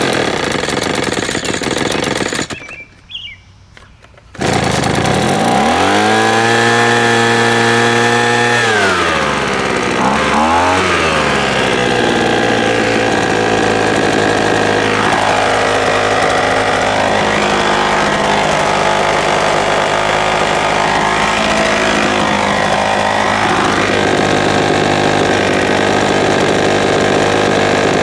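Ryobi two-stroke gas leaf blower starting after sitting unused for seven to eight months, primed and on full choke. After a loud rough noise and a short near-quiet gap, the engine catches about four seconds in and revs high, dips and climbs again, then from about twelve seconds on runs steadily with its speed wavering.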